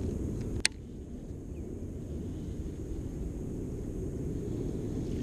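A single sharp click from a baitcasting reel about half a second in, over a steady low rumble.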